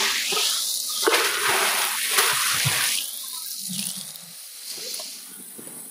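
Water splashing and rushing in a rain-swollen river, loud and uneven for about three seconds, then quieter.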